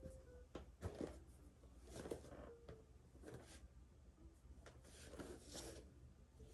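Faint rustling of clothing and soft bumps from a person doing full prostration bows, coming in short scattered bursts.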